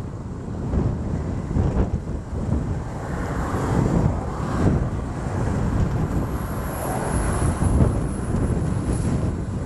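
Wind buffeting the microphone: an unsteady low rumbling rush.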